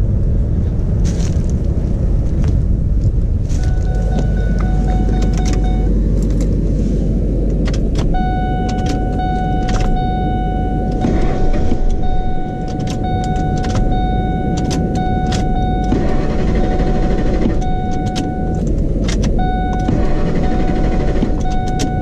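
A 2003 Ford F-150's 4.6-litre V8 idling steadily, running again after restarting on a swapped relay while a failing fuel pump is suspected. From a few seconds in, a steady electronic warning tone sounds over it with short breaks, along with a few light clicks.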